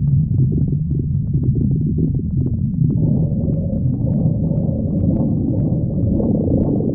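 A person's stomach growling, recorded close up: a steady low rumble with small gurgling pops through it, which grow busier and higher from about halfway through.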